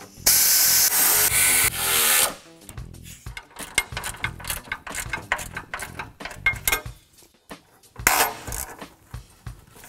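Pneumatic air ratchet driving a bolt: a loud hiss of air with the tool running for about two seconds, then a run of ratchet clicks as the fastener is worked in, and another short burst of the tool about eight seconds in.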